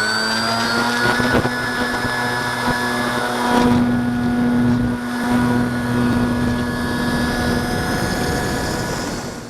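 Electric RC model airplane's motor and propeller running with a steady whine that rises slightly in pitch in the first second, then holds.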